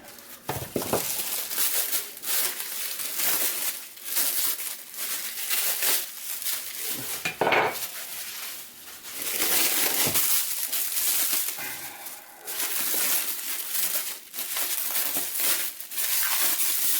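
Crinkling and rustling of wrapping as greasy old gun parts are unwrapped and handled, with occasional light clinks of metal parts.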